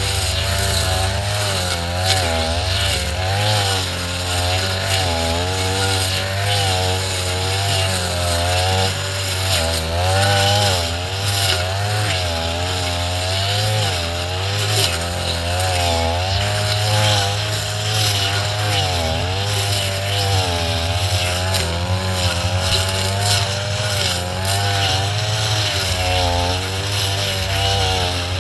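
Two-stroke brush cutter running hard while cutting tall grass, its engine pitch rising and dipping continually as the load changes.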